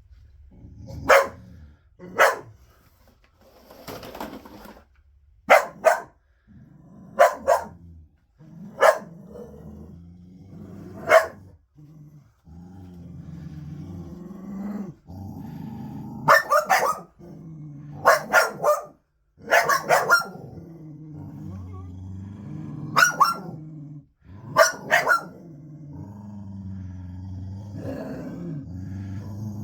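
A dog barking in sharp single and doubled barks, about a dozen in all, with low growling between the barks from about halfway through.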